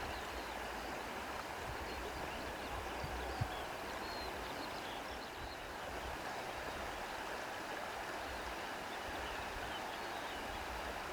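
Steady rushing of a flowing stream, with faint short high chirps over it.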